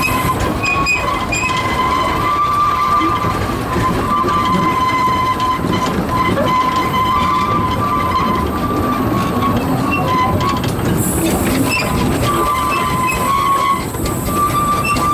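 Steady running rumble of the 1924 Wee Georgie Wood narrow-gauge steam locomotive heard from on board, with a high wheel-flange squeal that comes and goes as it rounds curves on the 610 mm gauge track.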